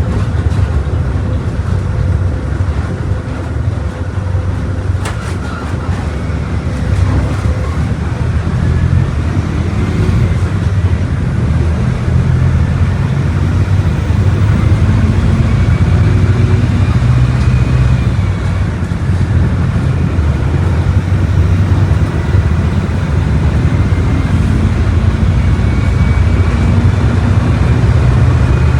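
Volkswagen Volksbus 17.230 bus's diesel engine running under way: a steady low drone that grows somewhat louder after about eight seconds, with faint whining tones rising and falling above it.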